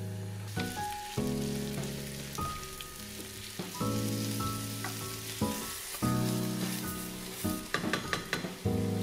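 Chopped leeks sizzling as they fry in a pan, with a few light knocks of a wooden spoon on the pot near the end. Background music with sustained chords runs throughout.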